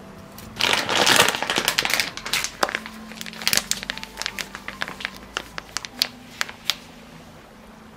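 Cake flour being poured into a glass bowl. It starts with a loud rustling, crinkling burst, then comes a run of sharp ticks and taps that grow sparser.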